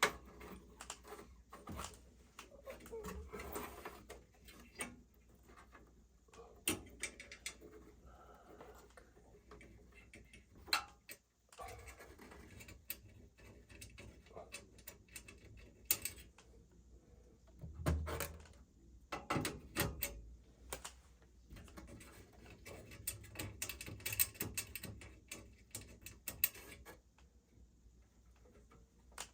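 Hands working on furnace parts: scattered clicks, taps and light scraping of metal parts and tools, with a few louder knocks about two-thirds of the way through.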